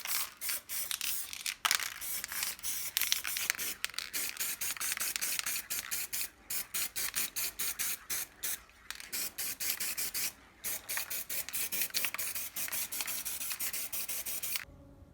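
Fast scratchy rubbing strokes by hand on the grater's parts, several a second in quick succession, stopping abruptly near the end.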